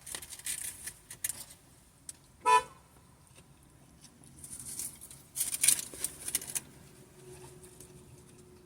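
A single short car horn toot about two and a half seconds in, with scattered quieter rustles and clicks later on.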